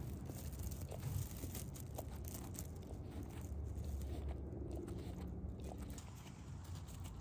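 Lion cub rubbing against a camera on the ground: its fur brushing and scraping over the microphone, with low rumbling and small clicks and crunches, a little quieter near the end.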